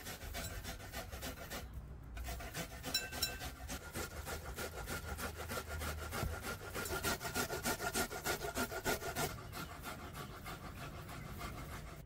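A vegetable rubbed up and down a stainless-steel box grater into a ceramic bowl: a fast, even rasping, about four strokes a second, with a short pause about two seconds in.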